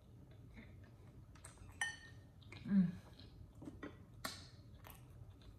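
A fork clinking and scraping against a ceramic bowl of chili cheese fries: a ringing clink about two seconds in, then a few more knocks a couple of seconds later. Halfway through, a short low hum from the eater is the loudest sound.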